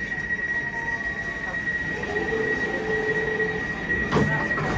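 Train door-closing warning tone: one steady high beep held for nearly five seconds, with a lower tone sounding alongside it for about a second and a half midway. A thump comes near the end.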